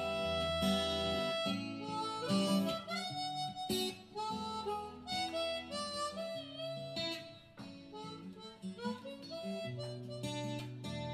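Harmonica playing a melody into a handheld microphone over acoustic guitar accompaniment, in an instrumental passage of the song.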